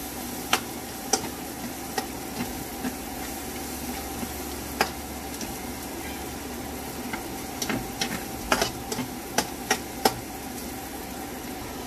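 Minced garlic sizzling in butter and olive oil in a frying pan, with a steady hiss. A spatula stirs it, scraping and tapping against the pan in irregular clicks that come thickest near the end.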